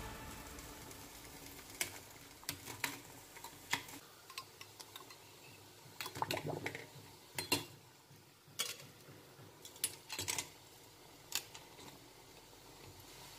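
Metal kitchen tongs clinking against a stainless steel pot and the metal pieces soaking in it: scattered light clicks and short clatters, thickest about six to seven and a half seconds in.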